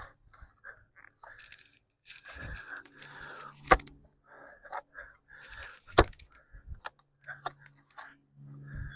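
Digging a fence post hole in ground full of roots: irregular scraping and crunching of soil and roots, with two sharp strikes about four and six seconds in.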